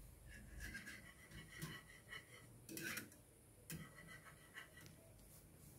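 Faint, intermittent scraping of a plastic spoon stirring a thickening rice-water and flaxseed gel in a small pan on the heat.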